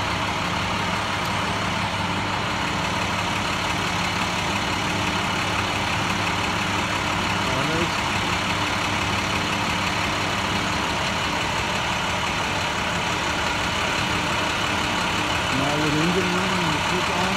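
School bus engine idling steadily, while the stop arm's electric motor swings the stop sign out on its repaired gear.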